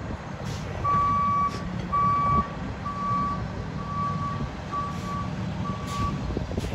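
Fire department rescue ambulance's backup alarm beeping about once a second as it reverses, six beeps with the first two loudest, over its engine running.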